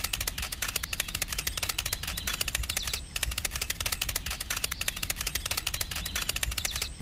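A rapid run of light clicks, many a second, with a short break about three seconds in.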